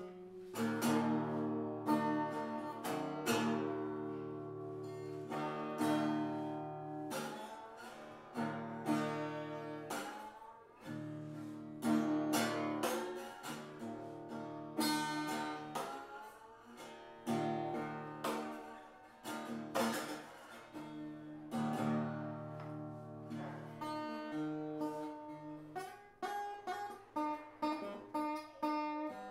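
Improvised acoustic guitar music played on a koa-wood guitar: strummed chords and picked notes, each ringing out after it is struck.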